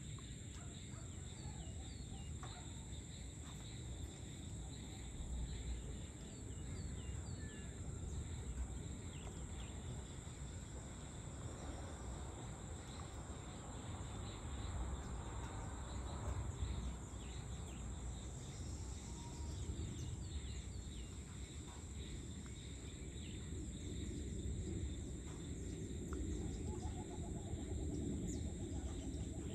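Evening outdoor ambience: a steady high insect drone with crickets in two constant pitch bands, scattered short bird chirps, and a steady low rumble underneath.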